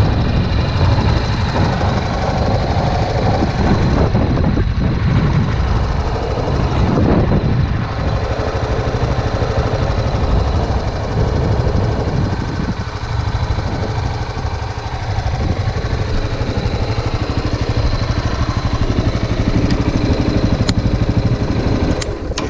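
Honda Tornado motorcycle's single-cylinder engine running steadily at idle.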